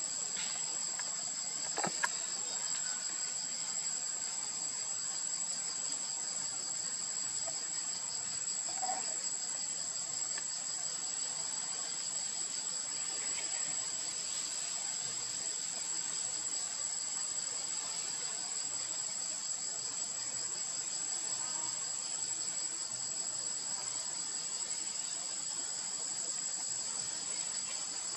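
Insect chorus: a steady shrill tone over a fast, pulsing high trill, with one brief click about two seconds in.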